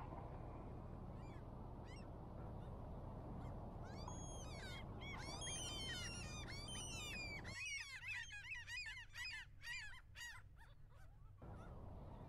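A flock of birds calling, many high, falling calls overlapping, starting about four seconds in and thickening into a chorus, over a steady low rumble that drops away partway through.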